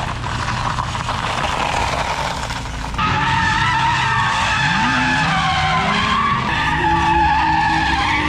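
A car drifting: tyres squealing in long, wavering tones over a running engine that revs up briefly in the middle. The sound changes abruptly about three seconds in, as if from one clip to another.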